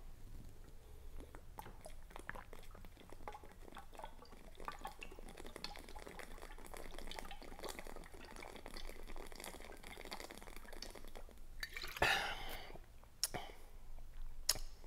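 Iced tea glugging from a glass liquor bottle tipped up for a long drink, with many small gurgling and gulping ticks. About twelve seconds in comes a louder short rush of noise, followed by a couple of sharp clicks.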